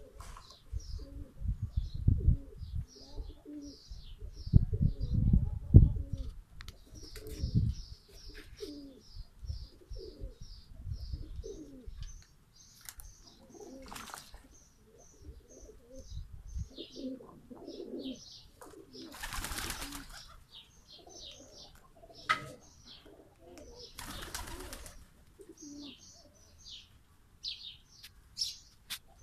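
Domestic pigeons cooing, over the quick high chirping of small birds. There are low thumps in the first several seconds, then a few short bursts of wing flapping and splashing as the pigeons bathe in basins of water.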